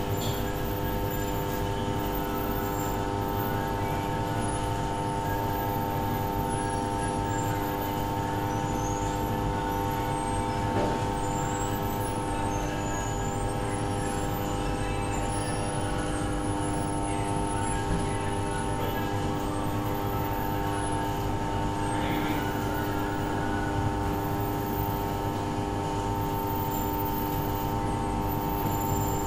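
Steady mechanical hum with several fixed pitches over a low rumble, unchanging throughout.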